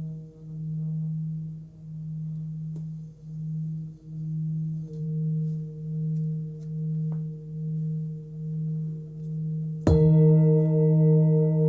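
A 21.7 cm Tibetan singing bowl tuned to about 158 Hz (D#), sounding a steady low tone that swells and fades in a slow, regular pulse. About ten seconds in it is struck and rings louder, with more high overtones.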